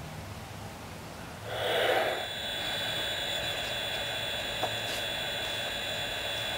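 Phoenix 2K2 sound card in a Bachmann large-scale Shay playing a simulated steam effect through the model's speaker: a burst of hiss about a second and a half in, then a steady hiss with a high whine over it, and a single click a little later.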